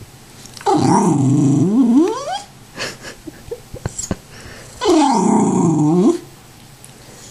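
Tibetan terrier 'talking': two long, drawn-out growly yowls with a wavering pitch, a demanding vocalization begging for more popcorn. A few short clicks come between the two calls.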